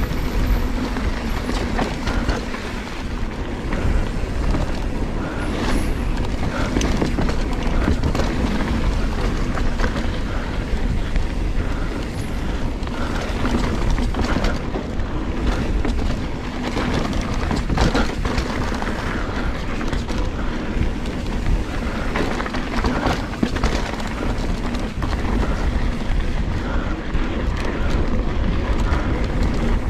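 Giant Trance full-suspension mountain bike rolling fast down a dirt trail: a steady rumble of knobby tyres on dirt with frequent clatter and knocks from the bike jolting over roots and bumps.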